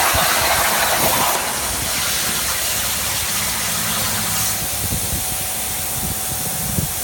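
CNC plasma cutter's torch hissing loudly, cutting off about a second and a half in. A steady mechanical drone carries on after it.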